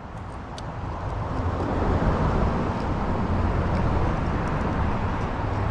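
Motor vehicle passing on the road, a steady engine and tyre rumble that grows louder over the first two seconds and then stays loud.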